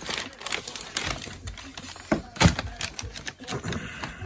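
Hands handling small parts and packaging from a cold air intake kit: a run of irregular clicks and rustles, with a sharper knock about two and a half seconds in.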